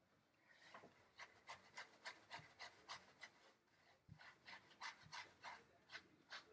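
Faint, rhythmic rubbing of a gloved hand scrubbing shampoo lather into a standard poodle's wet coat, about three scratchy strokes a second.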